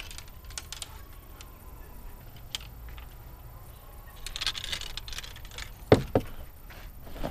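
Fishing rods and reels being handled and loaded into a car's cargo area: light rustling and small clicks, then two sharp knocks close together near the end.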